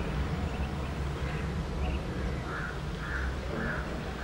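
Distant Boeing 737-700's CFM56 turbofan engines at takeoff thrust, a steady low rumble as the jet rolls and rotates. A bird calls repeatedly over it, about twice a second through the second half.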